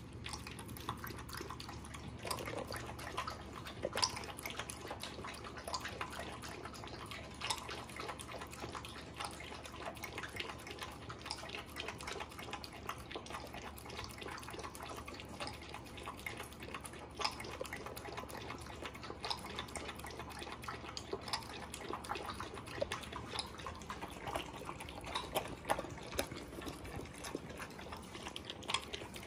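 A small dog lapping and slurping broth and food from a stainless steel bowl: a steady run of irregular wet clicks and smacks.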